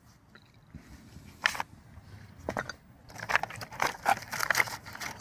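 Hand tools knocking and clattering against each other as they are rummaged through in a toolbox: two separate knocks, then a quick run of clinks and rattles from a little past halfway.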